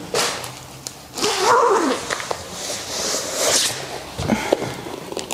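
Rustling and crinkling of packing material as a leather knee boot is handled and taken out of its box, with a few short squeaky tones that bend up and down, one of them rising near the end.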